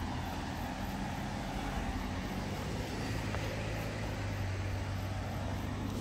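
Road traffic: a motor vehicle's engine running with a steady low hum that grows stronger about halfway through, over a wash of road noise.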